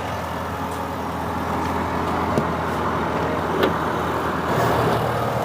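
The 2.4-litre engine of a Leopard Black King Kong 4WD SUV idling steadily, with a couple of faint clicks.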